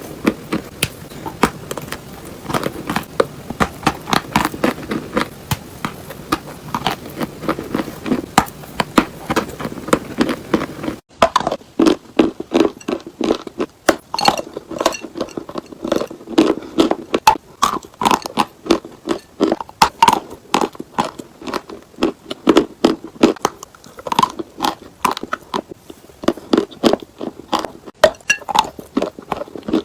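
Close-up crunching and chewing of chalk: irregular crisp crunches, several a second. The background hiss drops abruptly about eleven seconds in, as at a cut, and the crunching carries on.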